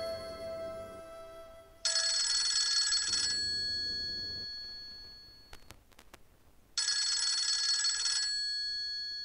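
Mobile phone ringing with an incoming call: two bursts of ringtone about five seconds apart, each lasting about a second and a half and trailing off. A few faint clicks come between the two rings.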